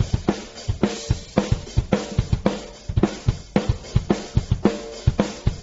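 Drum-heavy music track: a steady kick-and-snare beat with cymbals.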